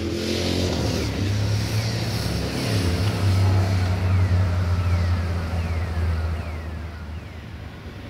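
The Sulzer diesel engine of an LDE2100 (class 060-DA) locomotive running, growing louder to a peak about midway and then easing off. A bird repeats a short falling whistle about every two-thirds of a second.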